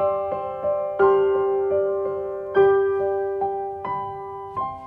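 Background music: a slow, gentle piano melody, notes and chords struck about once a second and left to fade.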